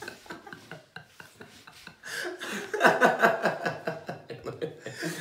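Two men laughing: soft breathy chuckling at first, then loud open laughter from about two seconds in.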